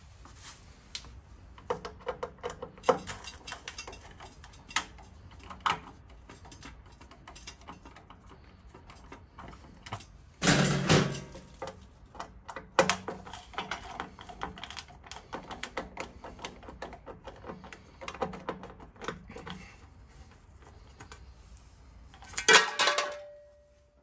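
Phillips screwdriver backing the screws out of an electric water heater's sheet-metal access cover: a run of small metal clicks, ticks and scrapes. There is a louder metallic rattle about ten seconds in, and another near the end as the cover comes off.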